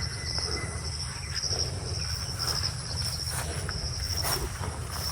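Crickets chirping in a steady, high, finely pulsing trill, over a low steady rumble.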